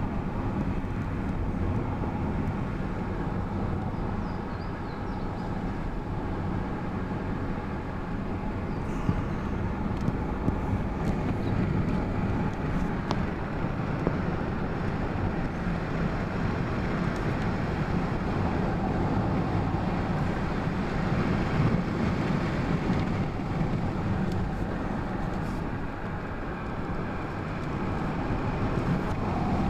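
Steady tyre and engine noise of a car driving along a winding paved road, heard from inside the cabin, with a few faint clicks.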